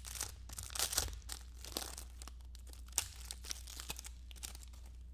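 A trading card pack wrapper being torn open and crinkled by hand, with dense crackling for the first couple of seconds and a sharp click about three seconds in, then thinning to a few light rustles.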